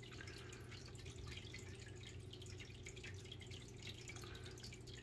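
Water dripping and trickling steadily in a turtle tank from its filter return, over a steady low hum of the filter pump.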